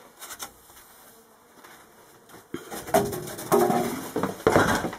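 Rummaging on a cluttered storage shelf: objects knocking and scraping as they are shifted and a board is pulled out, beginning about halfway in with several sharp clatters.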